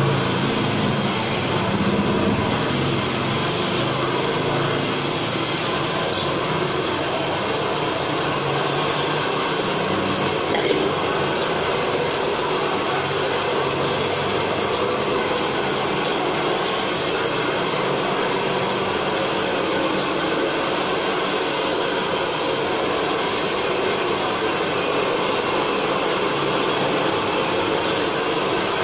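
Steady rushing noise of blown air from a running blower, unchanging in level throughout.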